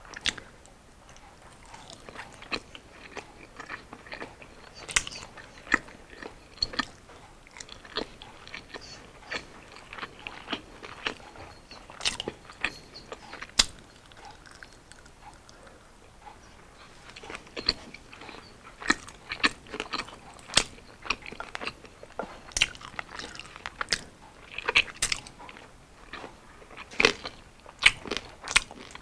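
Close-miked eating: a person biting and chewing fried street food, with irregular sharp crunches and mouth clicks throughout and a quieter few seconds near the middle.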